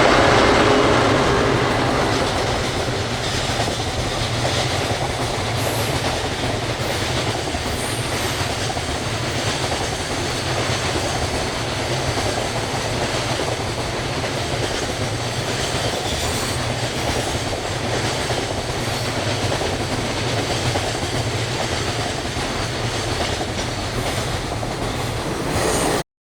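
A train's cars rolling past close by. It is loudest at the start and eases about two seconds in to a steady clickety-clack of wheels over the rails. The sound cuts off abruptly near the end.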